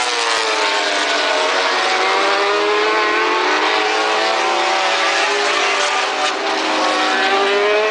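MotoGP racing motorcycle engine running at high revs. Its pitch falls over the first couple of seconds, holds steady, then rises again near the end.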